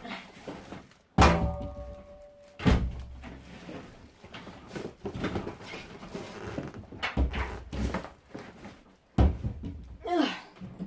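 Heavy thumps and knocks of a washing machine's metal casing being shifted and handled, four loud ones. The first, about a second in, has a short metallic ring.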